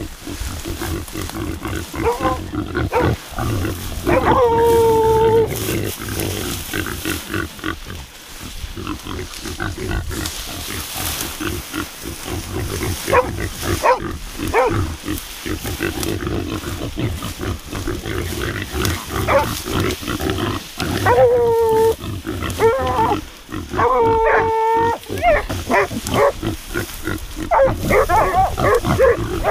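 A herd of wild boar grunting close by, with a few longer, higher pitched calls held about a second each, some seconds in and twice near the end.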